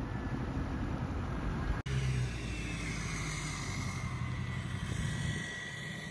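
A 2006 LBZ Duramax 6.6 L turbodiesel V8 running as the lifted pickup rolls slowly along, a steady low diesel rumble with a high turbo whistle that slowly falls in pitch. The sound cuts out for an instant about two seconds in.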